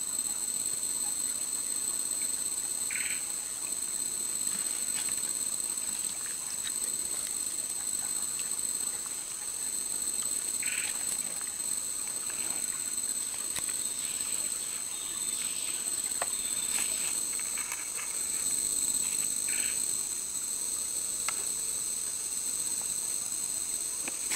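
Steady high-pitched chorus of insects, with three short chirps from another creature spread through it.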